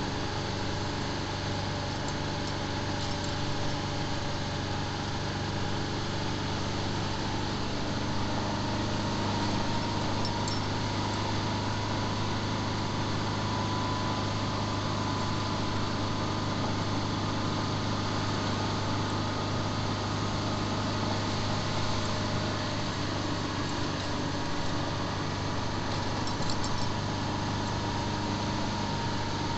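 Small motorcycle or scooter engine running at a steady cruising speed: an even low hum with a higher whine over road and wind noise.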